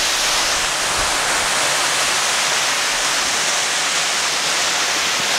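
Concrete mixer truck discharging a load of concrete down its chute: a steady, even rushing noise like running water.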